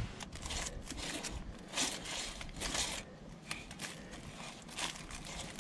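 Light handling noises: scattered rustling, crinkling and small clicks and taps, with no motor running.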